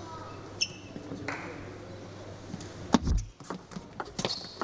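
Table tennis ball clicking off bats and table during play, with a couple of short high squeaks. A hard thump comes about three seconds in, and the clicks come more often near the end.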